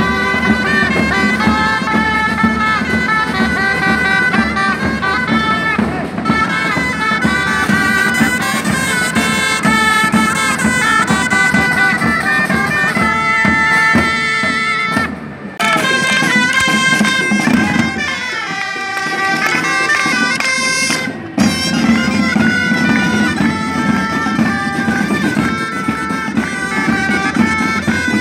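Street band of loud, reedy wind instruments playing a melody together over marching drums. The music breaks off briefly about halfway through and again a few seconds later, then carries on.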